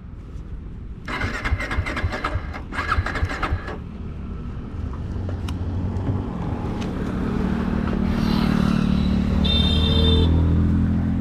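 Royal Enfield Guerilla 450's single-cylinder engine being cranked on the electric starter in two short attempts after the bike fell over and would not start, then catching and running, growing louder. A brief high-pitched tone sounds near the end.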